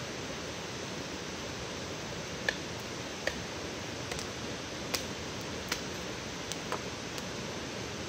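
Knife cutting into a stick of wood: about seven short, sharp clicks and cracks at irregular intervals, starting a couple of seconds in. Under them runs a steady hiss.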